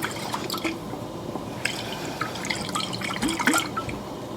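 Liquid glugging and dripping, with small irregular clicks, as a jar of Alfredo sauce thinned with a little water is poured out.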